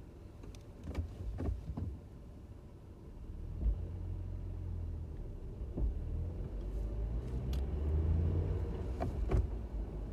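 2018 Jeep Wrangler JL with a 6-speed manual pulling away from a complete stop, its engine rumbling and rising as it moves off. A single pop or thud comes a few seconds in as the Jeep starts to move. The source of the pop is not known, and it could be from the front or the back.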